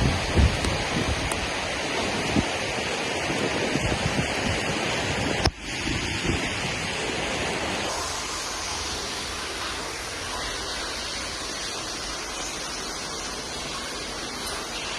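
Rushing floodwater and heavy rain: a steady hiss of water. It breaks off for an instant about five and a half seconds in and sounds thinner, with less low rumble, after about eight seconds.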